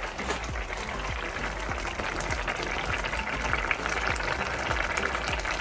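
Birria broth boiling hard in a pot on high heat, a steady dense bubbling with many small pops.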